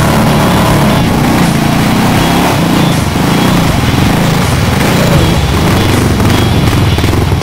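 ATV engine running as the four-wheeler wades through deep muddy water and passes close by, with the water churning and splashing around its wheels.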